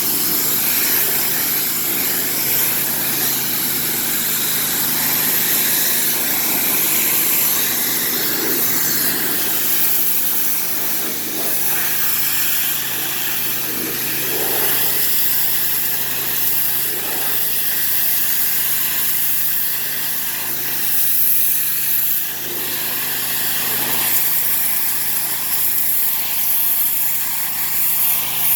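Pressure washer running steadily: a small petrol engine's constant hum under the hiss of water spraying from the wand.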